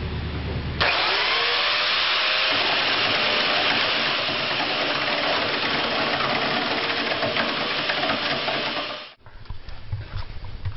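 Chainsaw cutting into a large wooden blank spinning on a lathe at about 555 RPM. A loud, steady cutting noise starts suddenly about a second in and cuts off abruptly near the end; before it there is a low hum from the lathe.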